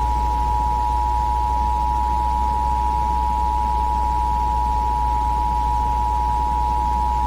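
Emergency Alert System attention signal: two steady tones sounding together just under 1 kHz (the 853 and 960 Hz EAS pair). It is held without a break and cuts off suddenly near the end, over a low steady hum.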